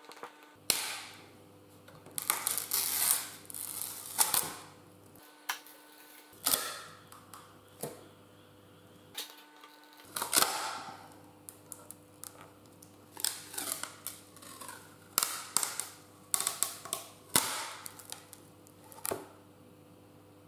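Clear plastic mold walls being pried and peeled off a cured resin casting, giving irregular sharp cracks and snaps as the sheets break away from the resin, with crinkling of the plastic. A faint steady hum runs underneath.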